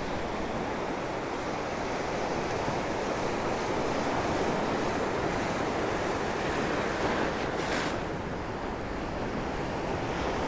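Ocean surf breaking and washing through the shallows as a steady rush of whitewater, with a short hiss about three-quarters of the way through.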